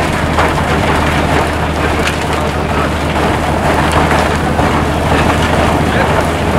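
Rotary snowplow on rails cutting through a snowdrift: a steady low engine drone under a continuous crackling hiss of snow being chewed up by the spinning blade and thrown clear.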